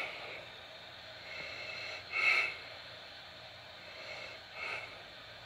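A man breathing through his nose close to the microphone: two short sniffs, about two and a half seconds apart, the first louder.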